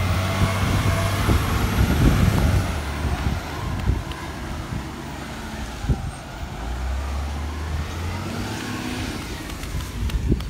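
Recycling truck's engine running as it pulls away down the street, quieter after about three seconds, with a second swell of low rumble later on. A few footsteps near the end.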